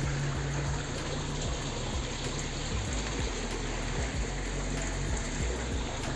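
Water of the Sulaimaniyah spring welling up from the ground and rushing through its stone-lined channel, a steady even rush.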